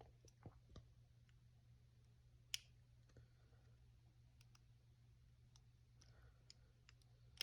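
Faint, scattered clicks of a lock pick and tension wrench working the pin stack of a brass Master Lock Pro Series 6840 padlock, with one sharper click about two and a half seconds in.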